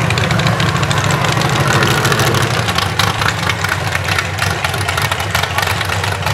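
Mud-bog buggy's engine running at a loud, steady idle, with a rapid choppy exhaust beat and no revving.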